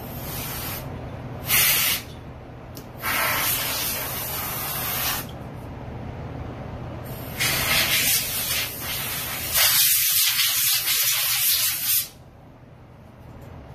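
Compressed air hissing from an air gun in about five bursts of varying length, the longest, near the end, lasting around four seconds, over a steady low hum.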